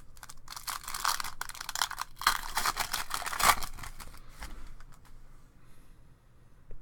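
Trading-card pack wrapper being torn open and crinkled: a dense crackling for about three seconds, then quieter rustling.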